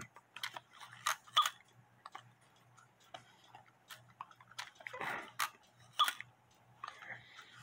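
Light, scattered clicks and taps from fingers handling the wire linkages, movement and wooden case of a small cuckoo clock, with a soft breath or mouth noise now and then.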